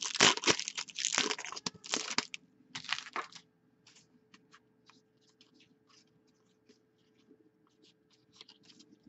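A foil trading-card pack wrapper torn open and crinkled for about two seconds, with a shorter crinkle just after, then faint clicks of cards being slid and flicked through by hand.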